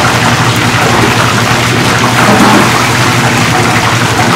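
Battered tempura pieces deep-frying in a commercial fryer: a loud, steady sizzle and crackle of vigorously bubbling oil.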